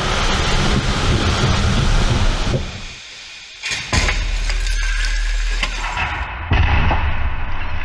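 2017 Volvo XC60 crash test: a steady rushing rumble as the car is drawn toward the barrier, then a sudden loud impact about four seconds in, with metal crumpling and glass shattering and debris rattling after it. A second loud burst of noise comes about six and a half seconds in.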